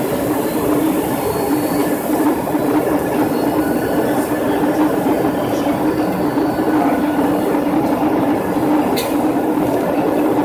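Airliner cabin noise during the descent: engines and rushing air make a loud, steady noise with a constant hum. A brief click comes near the end.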